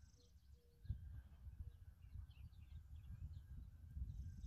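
Faint bird chirps over a low rumbling noise that grows louder about a second in.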